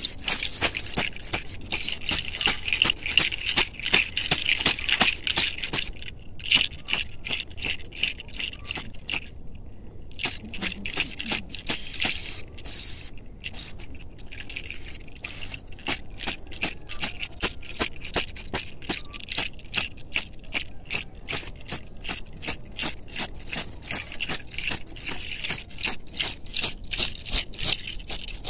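A bundle of fresh herbs (rue, Santa María, chilchil) brushed and swatted repeatedly over a person's body and arms, giving a rapid run of leafy rustling strokes about two to three a second that ease briefly a few seconds in. These are the sweeping strokes of a limpia ritual cleansing.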